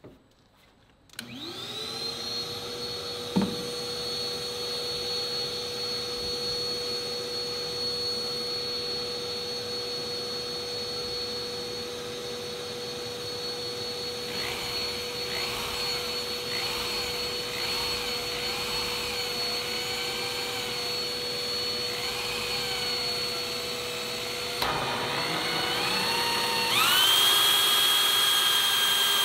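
A shop vacuum switches on about a second in and runs steadily, while a drill-driven hole saw cuts a rod-holder hole into the boat's gunwale in the second half, its sound wavering under load. Near the end a higher motor tone comes in and it all gets louder.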